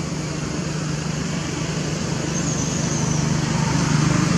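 Steady hum of road traffic, with a low engine drone that grows a little louder toward the end.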